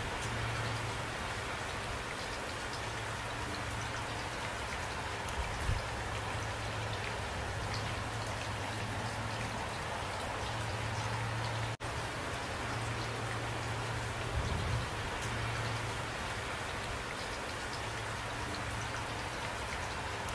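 Steady rain falling, with individual drops ticking close by. The sound cuts out for an instant about halfway through.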